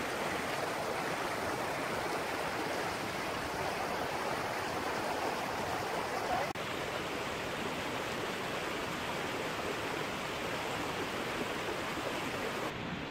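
Steady rushing of water, a continuous even hiss.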